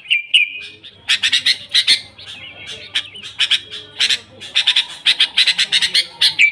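Sooty-headed bulbul (kutilang) singing busily: a short whistled glide, then fast runs of harsh, chattering notes.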